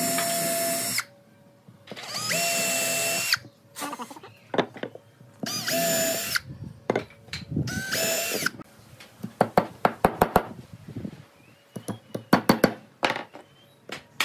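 Cordless drill-driver running in four short bursts of a second or so each, drilling and driving screws into wood, each run at a steady whine. After that come a series of sharp clicks and knocks.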